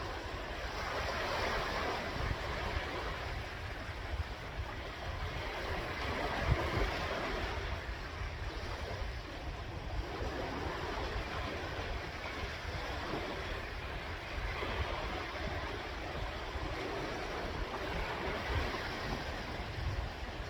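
Sea waves washing in and drawing back, the surf swelling and easing every few seconds over a steady low rumble.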